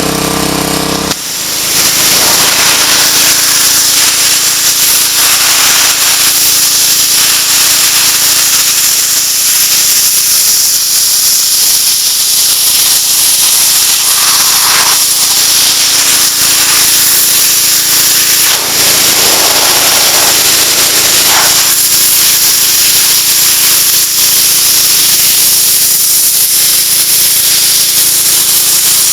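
Gas-engine 2,200 psi pressure washer: the engine runs for about a second, then the jet opens into a loud, steady hiss of high-pressure water spraying across a bass to blast its scales off, with the engine still under it.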